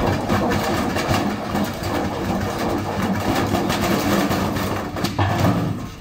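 Indesit washing machine spinning with a heavy brick in its drum, the unbalanced load making a loud, continuous rattling and banging that shakes the whole machine. The noise cuts off sharply at the end.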